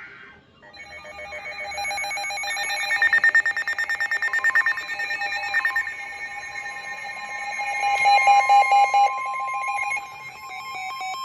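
Weather radio emergency alert tones going off for a severe thunderstorm warning: several electronic alarm tones overlapping, with a fast warbling pulse that swells twice. Near the end a single steady high warning tone takes over.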